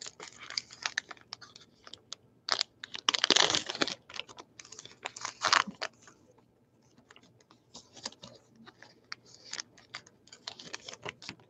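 Trading card pack wrapper being torn open and crinkled by hand: irregular crackles and rustles, loudest about three seconds in and again a little over five seconds in.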